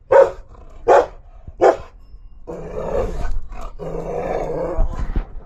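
Dog barking three times, about three-quarters of a second apart, then giving a long, rough, drawn-out vocalisation lasting nearly three seconds.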